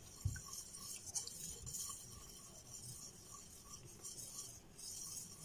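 Faint whisking: a silicone whisk stirring milk in a stainless steel saucepan to dissolve gelatin, soft strokes repeating evenly.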